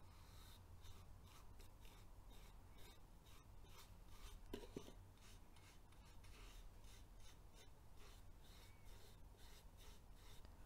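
Faint, repeated soft scrapes of a flat paintbrush laying white acrylic paint onto a small wooden box.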